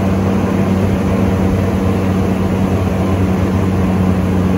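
Airboat running at speed: the engine and its air propeller make a loud, steady drone.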